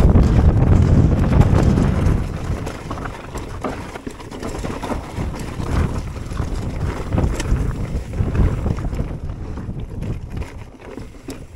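Wind buffeting the microphone of a mountain bike descending a rocky trail, loudest for the first two seconds and then easing, with the tyres crunching over loose stones and frequent sharp clicks and knocks as the bike rolls over rocks.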